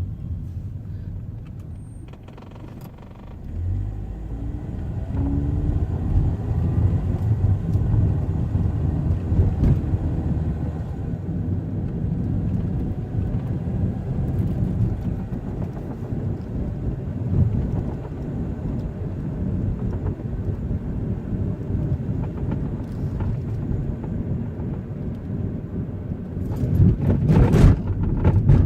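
2005 Chevy Cobalt heard from inside the cabin while driving: engine and road rumble, the engine pitch rising as the car accelerates about four seconds in, then steady running, with a louder rush near the end.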